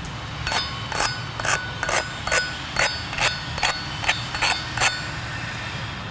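Chipping hammer knocking the slag off a freshly run stick-weld cap on steel plate: about a dozen sharp metallic taps, roughly two a second, each with a short ring, ending about five seconds in.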